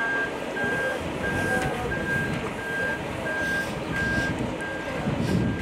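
Vehicle reversing alarm beeping at an even pace, about three beeps every two seconds, over a low background rumble.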